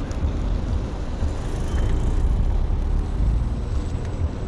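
Steady low rumble of wind on the microphone and tyre noise from an electric scooter riding on a city street, with car traffic close by. A faint short high tone is heard about two seconds in.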